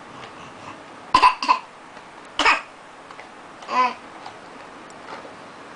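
A person fake-coughing on purpose: a quick double cough about a second in, a single cough a second later, then a short voiced sound near the four-second mark.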